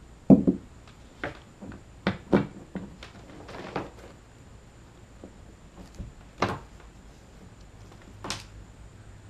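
Irregular knocks and clunks of a transducer cable being handled and shoved into a hole in a boat's console, a few sharp taps among quieter rustling.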